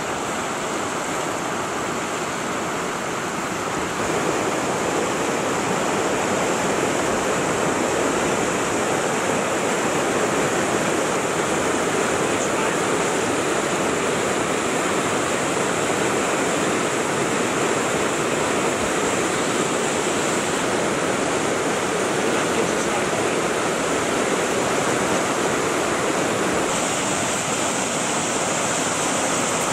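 Whitewater of a river rapid rushing steadily over rocks. It gets a little louder about four seconds in.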